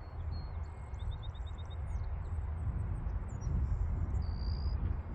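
Small birds chirping in short high notes, with a quick trill about a second in and a short held whistle near the end, over a steady low rumble.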